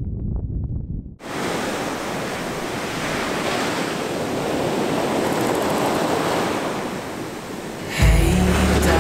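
Sea waves breaking on a rocky shore, a steady wash of surf that starts about a second in after a short low rumble. Music with a deep bass comes in near the end.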